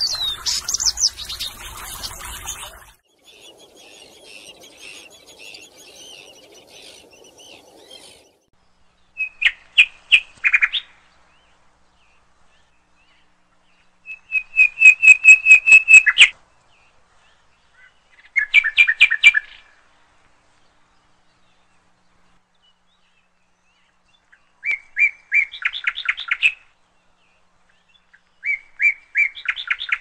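Water trickling and splashing in a fountain birdbath for the first three seconds, with a bird call. Then a small songbird sings five short phrases of rapid repeated high chirps, each one to two seconds long, separated by silences.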